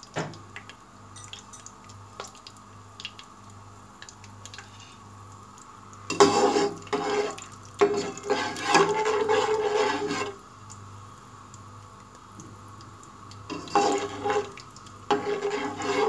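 A spoon stirring and scraping cashews and almonds through hot ghee in a nonstick pan, in several bursts starting about six seconds in. Before that there is only a faint light crackle from the nuts roasting in the ghee.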